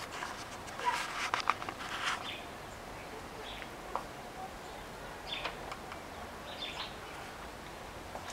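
Clicks and rattles of a door, with a bunch of keys hanging in its lock, being handled about a second in. After that come a few short, faint bird chirps.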